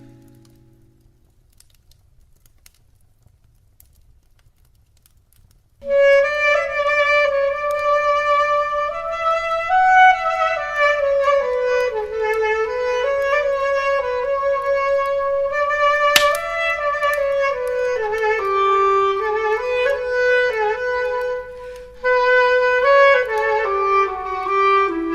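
Clarinet playing a slow, gliding melody that starts about six seconds in after a quiet pause, with a steady low hum underneath.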